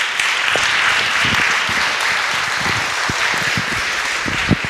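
Audience applauding: dense, even clapping that starts at once and eases slightly near the end.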